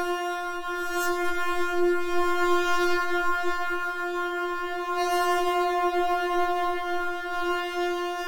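Synthesizer tone held steadily on one pitch, with a reedy, horn-like buzz; its upper overtones brighten briefly about a second in and again about five seconds in.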